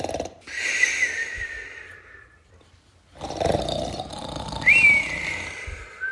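A person snoring: a rasping snore, then a high whistling breath, repeated twice, with a third whistle starting near the end.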